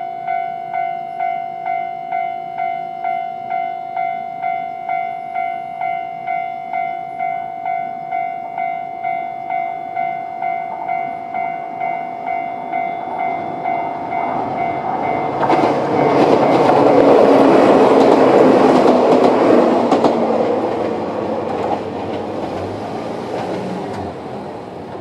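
Japanese level-crossing alarm ringing its electronic bell tone, just under two beats a second. About fifteen seconds in, a Toyama Chiho Railway 16010 series electric train passes over the crossing. Its running noise swells, drowns the bell and fades away toward the end.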